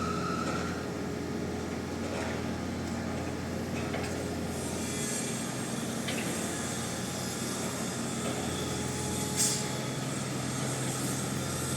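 Heavy construction machinery's engine running steadily with a low hum, and a brief loud hiss about nine seconds in.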